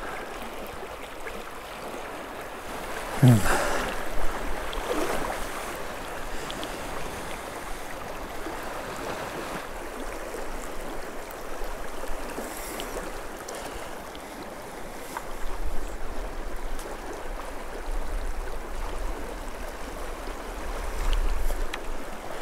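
Shallow river water rushing and rippling steadily over a cobble bed, with a brief louder sound about three seconds in.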